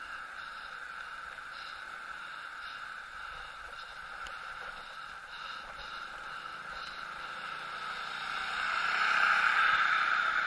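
Steady road and wind noise from riding along a paved lane. It swells louder about eight seconds in as a motor scooter passes close by.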